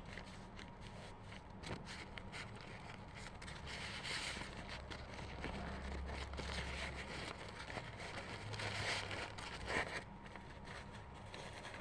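Food being handled while a chicken roll is prepared for serving: scraping and rustling with many small clicks, louder around four seconds in and again around nine seconds in.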